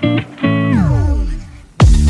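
Background music: a short note, then a held pitched note that slides steeply down in pitch, and a deep hit near the end.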